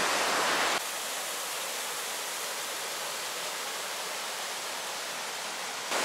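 Steady rush of water from river rapids and a waterfall, an even hiss with no separate splashes. About a second in it drops suddenly to a lower, duller level and then holds steady.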